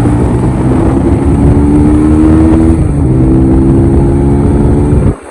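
Honda CBR150R's single-cylinder engine accelerating hard. Its pitch climbs, drops once a little before the middle as it shifts up, then climbs again. It cuts off suddenly near the end.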